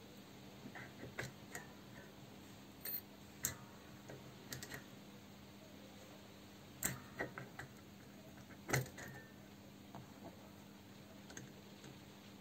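Small metal parts clicking and tapping against a Classic Mini's cast brake master cylinder as it is reassembled by hand, in scattered sharp clicks, the loudest about seven and nine seconds in. A faint steady hum lies under them.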